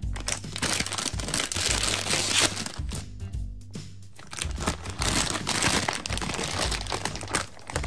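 Plastic gumball bag crinkling loudly as it is opened and handled, in two long stretches, over background music with a steady bass line.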